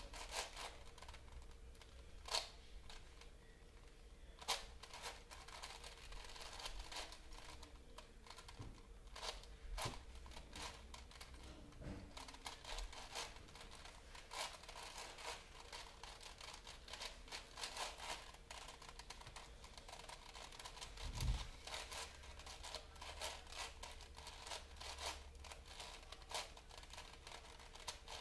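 Paper being crumpled, folded and rustled in the hands: a long irregular stream of small crackles and rustles with a few sharper clicks. One dull knock comes about three quarters of the way through.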